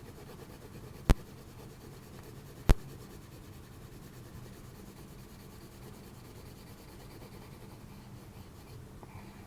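Crayon rubbing back and forth on paper as a paper cutout is coloured in. Two sharp clicks stand out, about a second in and again a second and a half later.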